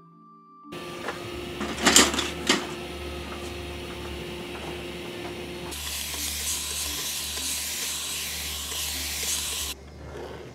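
Two sharp knocks about two seconds in, then a steady hiss of a spray bottle misting veg-tan leather for about four seconds, which cuts off abruptly.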